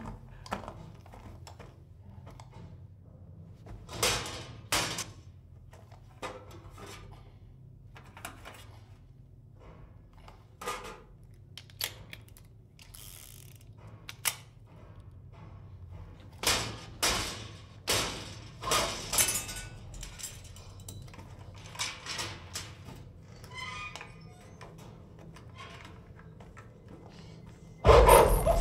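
Tense film soundtrack: a low steady drone under scattered short thuds, knocks and clicks, some in small clusters, with a sudden loud noisy burst near the end.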